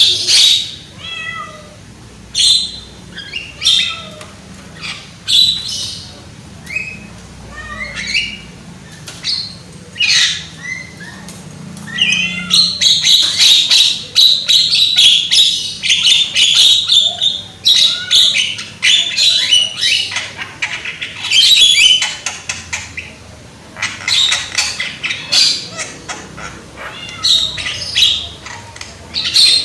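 Young Javan myna calling loudly: harsh squawks and short whistled notes, breaking into long stretches of fast, scratchy chatter in the middle and again near the end.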